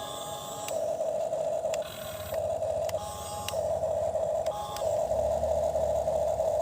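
Small electric motors and plastic gears of a toy excavator whirring, the tone switching back and forth every second or so as it changes between movements, with clicks at the switches.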